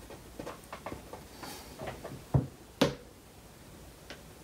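Marker pen writing on paper in short scratchy strokes, with two louder taps of the pen a little past halfway.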